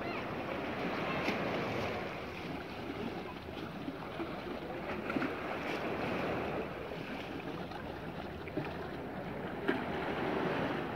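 Small sea waves washing onto the shore, with wind on the microphone.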